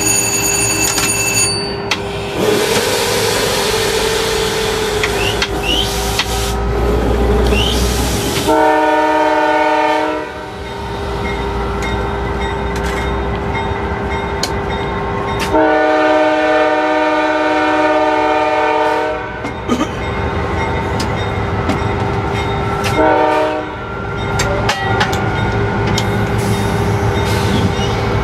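Diesel locomotive air horn sounding the grade-crossing signal over the running engine: a long blast about eight seconds in, a longer one from about fifteen seconds, a short one near twenty-three seconds, and the final long blast starting at the very end.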